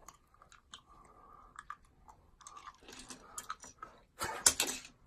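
Scattered small clicks and crunching rustles, with a louder crunching rattle about four seconds in.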